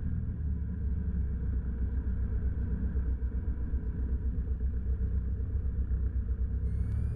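Cessna 172 Skyhawk's piston engine and propeller droning steadily, heard inside the cabin at the start of a takeoff.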